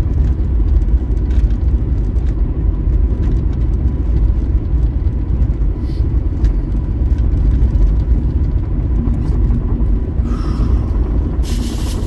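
Steady low rumble of road and engine noise heard inside a moving car's cabin while cruising, with a short hiss near the end.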